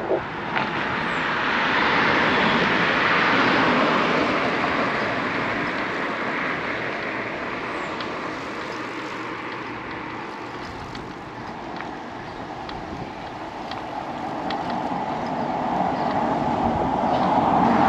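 Road traffic going past a bicycle: steady road noise with two cars swelling past, one about two to four seconds in and another near the end.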